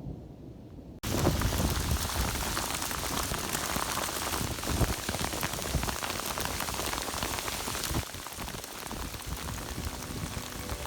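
Steady hiss of falling rain, beginning abruptly about a second in and becoming quieter about eight seconds in.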